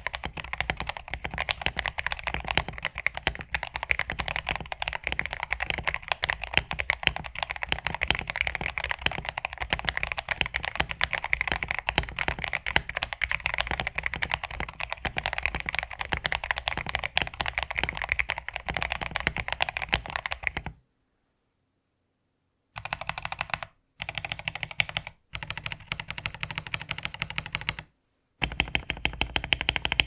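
Fast typing on a TM680 mechanical keyboard modded with a polycarbonate plate, PE foam, tape and case foam, fitted with lubed Gateron black clear/black switches and XDA-profile dye-sub keycaps about 1.5 mm thick: a dense run of key clicks. The typing stops abruptly about 21 seconds in, then comes back in several short stretches with silent breaks between them.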